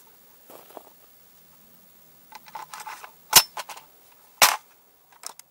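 Metallic clicks and rattles of an AR-15-style rifle's charging handle and action being worked by hand, with two loud sharp snaps about a second apart near the middle.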